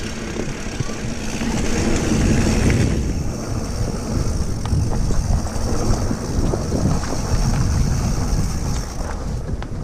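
Wind rushing over a GoPro action camera's microphone as a mountain bike rolls down a dirt trail, with tire noise and small scattered clicks and rattles from the bike.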